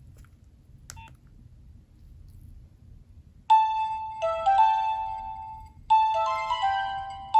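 A Nokia 3300b ringtone starts about halfway in: a short electronic melody of clear notes that ends and begins again about two and a half seconds later. Before it there is faint hiss and a single click about a second in.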